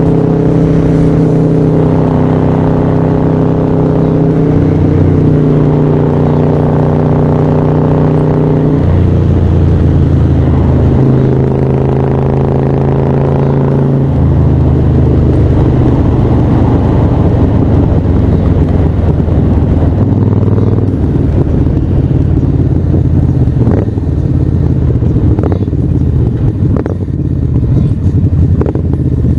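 Harley-Davidson Sportster 1200 V-twin engine with a Screamin' Eagle Stage IV build, running under way at a steady cruising note. The note changes about nine and about fourteen seconds in. In the last third it drops in falling glides, with a few sharp clicks.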